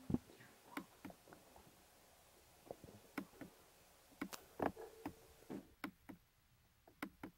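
Faint scattered clicks and taps at irregular intervals over low room tone.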